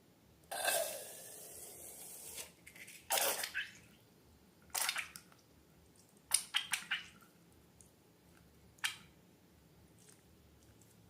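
Slime and balloons being handled: a hissing rush of about two seconds near the start, then several short, wet squishes and clicks, including a quick cluster of four or five about halfway through.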